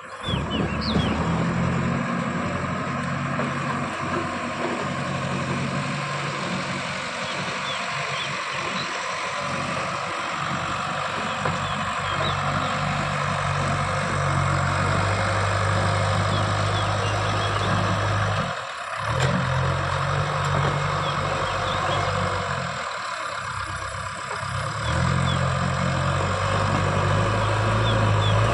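Diesel engine of a JCB 3DX backhoe loader running under working load, its note stepping up and down as the machine digs and loads. It drops away briefly about two-thirds in and again near the end.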